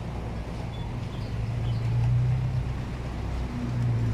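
Tractor diesel engine running steadily as it tows a second tractor by a chain, its low hum growing louder about two seconds in.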